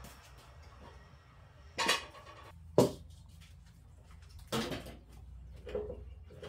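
Metal cooking pots and a kettle being handled and set down, giving four separate clanks, the sharpest about three seconds in, with a short metallic ring after the last one near the end.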